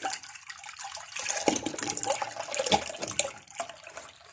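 Milk being poured into a saucepan: a continuous stream of splashing liquid that weakens near the end.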